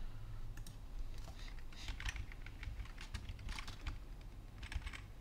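Computer keyboard typing in a few short runs of keystrokes.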